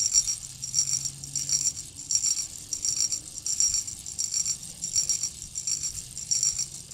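An insect calling: short, high-pitched rasping buzzes repeating evenly about twice a second.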